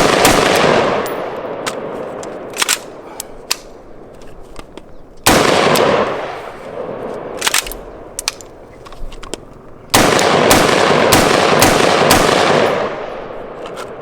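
PAE AR-15 rifle firing rapid strings of shots right after being frozen in dry ice: one string ends about a second in, another starts about five seconds in, and a third about ten seconds in runs for nearly three seconds, each with an echo dying away and scattered metallic clicks in between.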